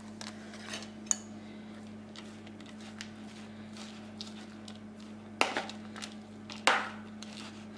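Metal spoon stirring a filling of diced chicken and grated cheese in a plastic bowl: soft scrapes and light clicks, with two sharper knocks a little past the middle.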